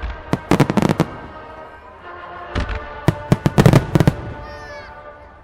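Starmine firework shells bursting in rapid volleys of sharp bangs over music from loudspeakers: a cluster of bangs about half a second to a second in, and another between three and four seconds in, with the music carrying on between them.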